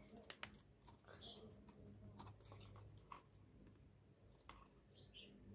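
Near silence, broken by a few faint clicks and taps of steel angle iron being handled on a wooden board. Faint short bird chirps sound in the background, about a second in, again near two seconds and near the end.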